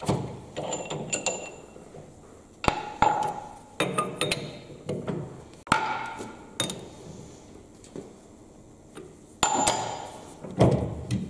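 Metal-on-metal clanks and clinks as a lathe's three-jaw chuck is loosened with its key and worked off the spindle nose: a handful of sharp knocks, some with a short ring, among rattling and scraping.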